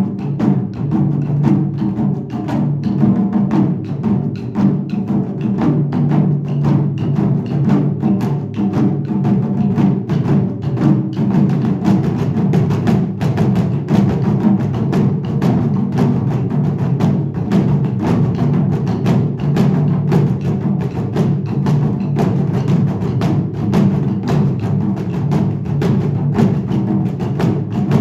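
Taiko drum ensemble playing: fast, dense strokes of wooden sticks on several barrel drums, with no pause.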